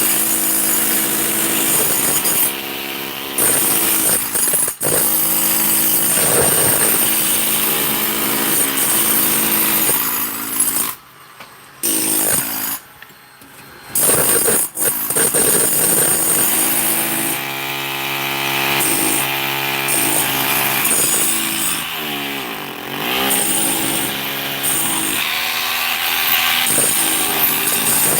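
A handheld power tool running hard. It stops briefly twice midway, and later its pitch dips and recovers as it comes under load.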